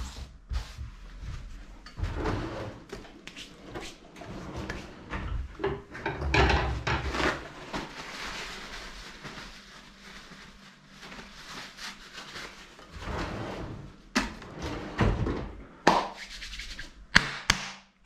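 A paper towel rustling and crumpling as hands are wiped dry, with scattered handling clicks. Several sharp knocks and bangs come in the last few seconds, the loudest about a second before the end.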